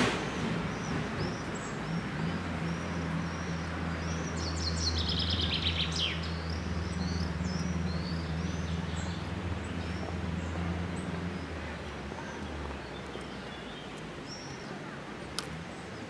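Wild birds singing and chirping, with scattered short high calls and one louder descending rattling phrase about five seconds in. A steady low hum runs underneath and fades out near the end.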